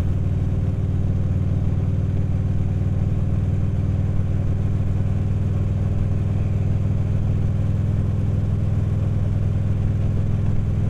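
Harley-Davidson motorcycle's V-twin engine running steadily at cruising speed, with wind rush over it.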